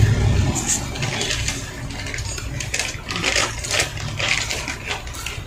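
Eating by hand from a plate: an irregular run of light clicks and clinks as fingers work rice and fish against the plate.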